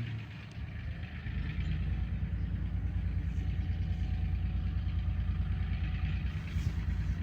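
Diesel locomotive engine working hard at high throttle, a loud, fast-pulsing low rumble that grows louder as it approaches; it is being run in notch 8.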